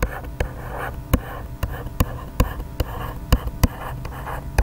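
A stylus writing on a tablet surface: sharp taps as the pen tip lands, about two or three a second, with short scratchy strokes in between.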